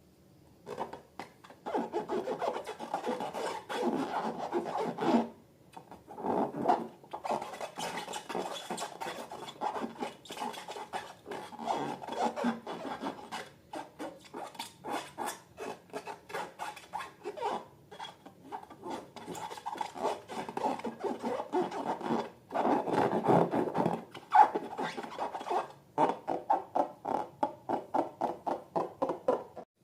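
Slime being squeezed and kneaded by hand: bursts of dense, small crackling clicks and squelches, starting about a second in, ending with quick rhythmic squishes about three a second.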